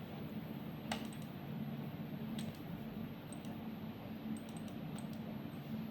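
Steady low hum with a few scattered sharp clicks of a computer mouse or keys being worked.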